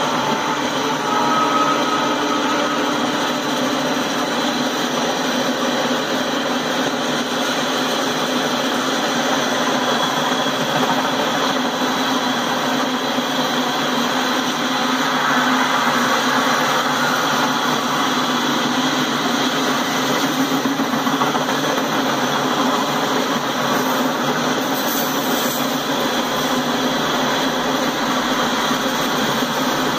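Freight train of covered hopper cars rolling past, its steel wheels on the rail making a steady, unbroken noise.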